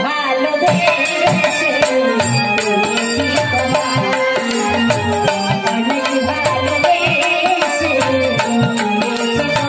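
Bengali jatra folk music: steady hand-drum strokes under a held, wavering melody line, played without a break.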